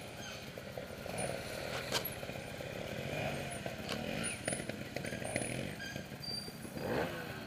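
Trials motorcycle engine running with the throttle blipped up and down, and a few sharp knocks along the way.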